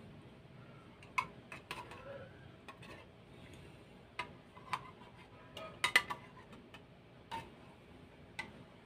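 Metal utensil clinking and scraping against the inside of an opened sardine tin while scooping out sardines: scattered sharp clicks at irregular intervals, the loudest cluster about six seconds in.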